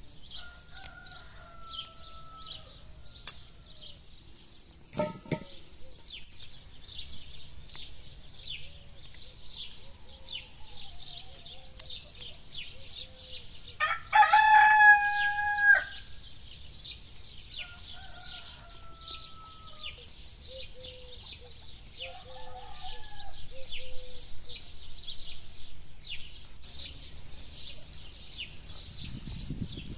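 A rooster crowing once, loud and about two seconds long, about halfway through, with fainter crowing further off near the start and again later. Steady high chirping of small birds runs underneath.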